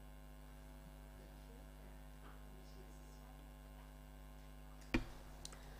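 Steady low electrical mains hum, with one short knock about five seconds in.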